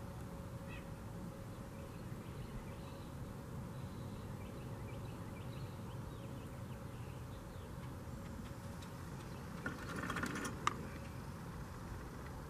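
Quiet outdoor background with faint bird calls. About ten seconds in there is a brief louder burst, ending in a single sharp click.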